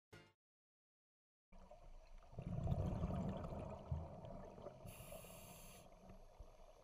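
Scuba diving heard underwater: a muffled low bubbling rumble of exhaled air from a diver's regulator, starting about a second and a half in, with a short hiss of a regulator breath about five seconds in.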